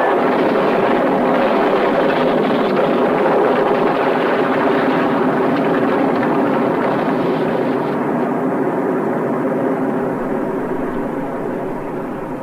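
Film sound of a propeller warplane's engine droning loudly in a steady, dense roar. About eight seconds in it turns duller, and it fades slightly near the end.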